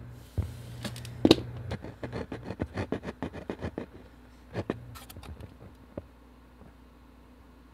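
Faulty Philips subwoofer crackling and popping: quick, irregular clicks with a loud pop about a second in, over a low hum that comes and goes. The crackling dies down after about four seconds. The owner blames the damage on the volume having been cranked all the way up.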